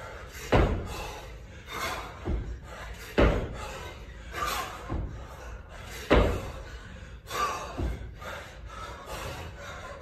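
Kettlebell lifting: a heavy thud about every three seconds as the bell is caught or set down, with lighter knocks between.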